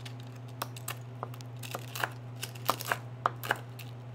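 Knife chopping crispy prosciutto on a wooden cutting board: about a dozen uneven, sharp strikes with the crackle of the crisp meat, over a steady low hum.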